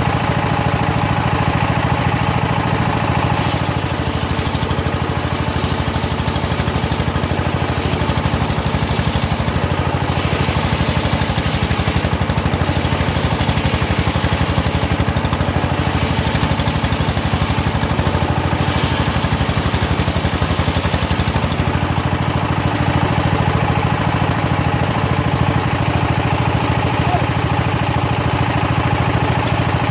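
Engine-driven homemade circular saw running steadily while its blade rips hard teak, with the high hiss of the cut swelling for several seconds a few seconds in and returning in shorter bursts after.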